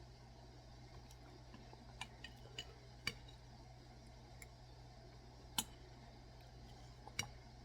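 A spoon clinking against a soup bowl while eating: several short, sharp clicks at irregular intervals over a faint steady hum.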